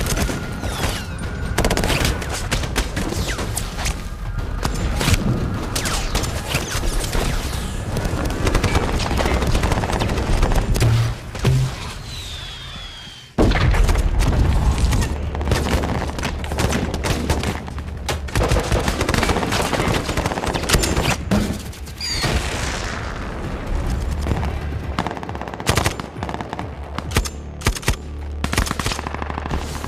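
Film battle soundtrack: sustained automatic gunfire and explosions over a low musical score. About 13 seconds in, a short lull is broken by a sudden loud explosion, and heavy firing carries on after it.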